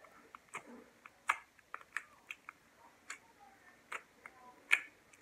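Homemade pink slime clicking as it is pressed and poked in its small plastic tub: a string of irregular sharp clicks and pops, the loudest about a second in and near the end.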